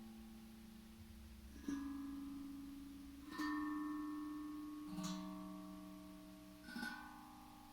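Tank drum (steel tongue drum) played slowly: four single notes, each a different pitch, struck about a second and a half apart. Each note rings on and fades gradually.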